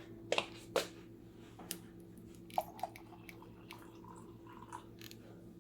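Light clicks and clinks of glass and kitchenware being handled, a dozen or so short knocks, some ringing briefly, over a steady low hum.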